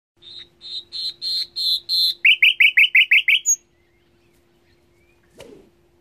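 A nightingale singing one phrase: about seven repeated notes that grow louder, then seven quick falling notes and a short high note at the end. A single dull thump follows about five seconds in.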